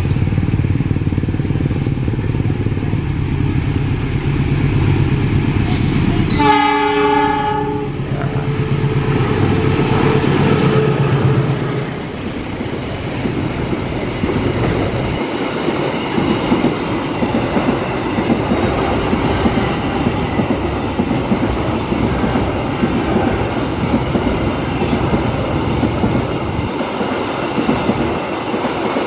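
Diesel locomotive hauling an empty coil freight train past with its engine running, sounding its horn in one short blast about six and a half seconds in. The wagons then roll by with a steady clatter of wheels over rail joints.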